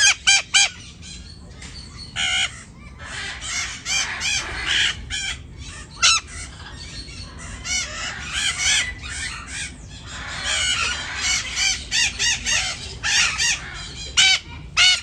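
Parrot-family birds calling: a busy stream of short squawks, chirps and whistled notes, several often overlapping, with a few loud sharp calls at the start and near the end.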